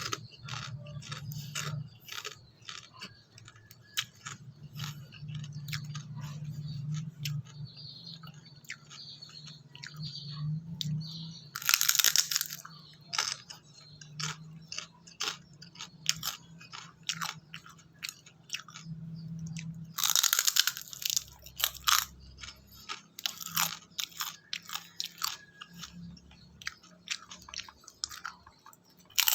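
Close-up crunching and chewing of chicharon (fried pork rinds), a run of sharp crackles with each bite. There are two louder, longer crackling spells, about twelve and twenty seconds in.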